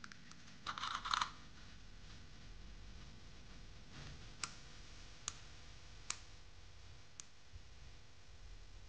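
A quick cluster of plastic clicks about a second in as the rocker switch on an LED bulb's socket adapter is pressed and the bulb handled, switching the repaired bulb on. Four single sharp ticks follow, about a second apart.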